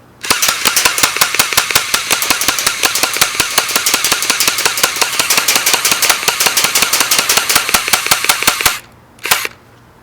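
Airsoft Mini Uzi submachine gun with a dummy silencer firing one long full-auto burst of rapid, even clicks for about eight and a half seconds, then a short second burst near the end.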